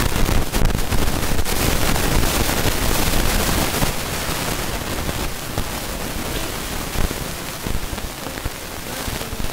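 Loud, steady static hiss with a fine crackle, spread evenly from low to high pitches and cutting in abruptly just before, with no speech audible through it: an audio signal fault, such as a microphone or recording dropout, that drowns out the speaker.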